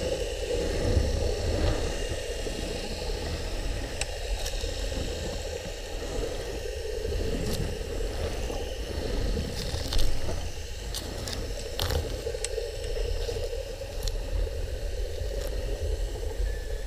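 Underwater ambience: a steady low rumble and muffled sloshing of water, with scattered sharp clicks and ticks.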